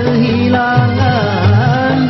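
Sad Indonesian song playing: a wavering melody over a steady, repeating beat, in an instrumental passage between sung lines.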